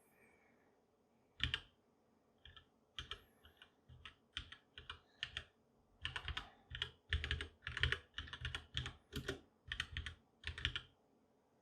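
Typing on a HyperX Alloy Origins Core mechanical keyboard with HyperX mechanical switches: rapid runs of keystrokes with short pauses, starting about a second and a half in.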